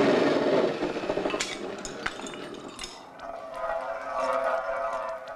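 Cartoon sound effects: the noisy tail of a shattering crash fades over the first second, then a few sharp clinks follow. From about three seconds in, a held tone with several pitches sets in.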